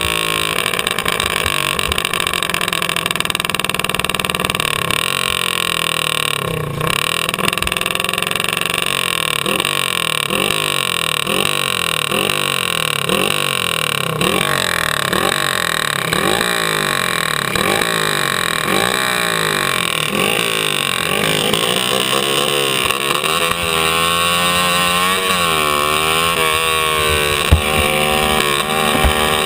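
Racing kart's engine running hard at close range, its pitch rising and falling again and again as the driver lifts off and gets back on the throttle through the corners.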